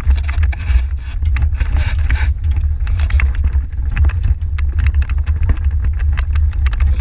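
Horse-drawn marathon carriage moving fast over grass: a heavy, steady low rumble with constant irregular rattles and knocks from the metal carriage.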